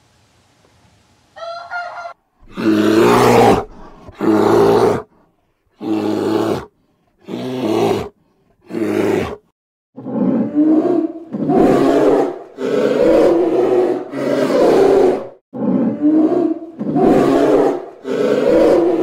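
Polar bear roaring and growling in a series of about a dozen loud calls, each half a second to a second and a half long. The calls begin about two and a half seconds in, spaced by short silences at first and coming almost back to back in the second half.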